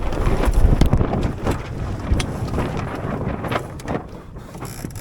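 Wind buffeting the microphone aboard a sailboat under way, a low rumble that is strongest in the first second or so and then eases. Scattered clicks and knocks run through it.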